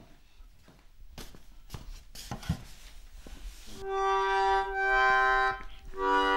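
A few faint clicks and knocks, then an early free-reed accordion, Demian's 1829 button accordion, sounding held chords from about four seconds in: two chords, a short break, and a third starting near the end.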